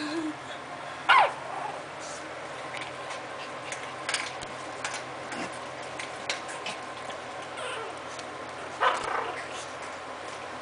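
Young Maltese puppies yipping and whimpering as they play: a sharp yelp falling in pitch about a second in and another cry near the end, with small clicks between.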